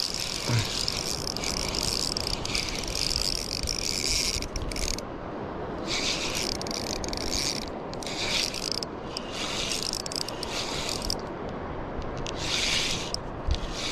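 Spinning reel being cranked, its gears whirring in bouts, with several short pauses in the winding.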